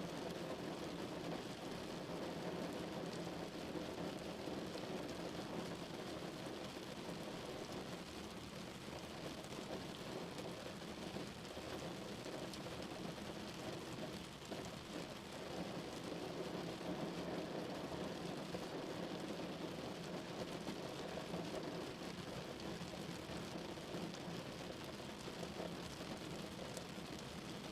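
Steady rain falling: a continuous even hiss of rainfall from a stock sound effect.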